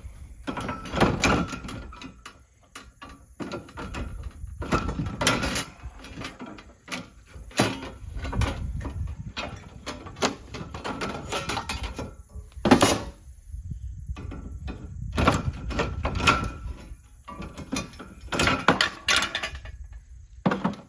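Irregular clanks, knocks and scraping of sheet metal as a side piece is cut and worked off an aluminum-copper radiator, with no steady power-tool run.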